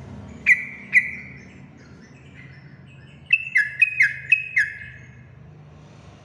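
A yellow-vented bulbul (trucukan) calling in sharp, loud chirps: two notes near the start, then a quick run of about five notes around the middle, each dropping in pitch.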